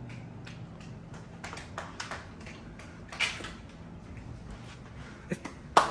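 Scattered light clicks and knocks of things being handled, over a low steady hum, with one sharp knock near the end.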